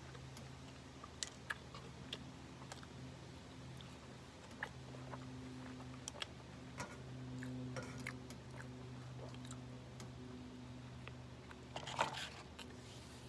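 Chewing a mouthful of Big Mac burger, with soft wet mouth clicks and scattered light crackles, over a steady low hum. A denser burst of crackles comes near the end.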